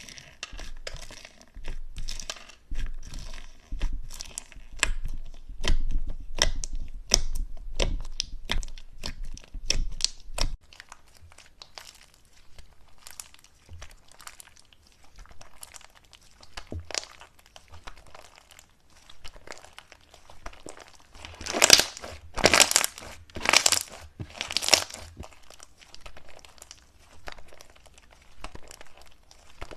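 Slime being pressed, poked and stretched by hand, giving close crackling and popping with many sharp clicks, thinning out about a third of the way in; four louder squishes come in quick succession in the last third.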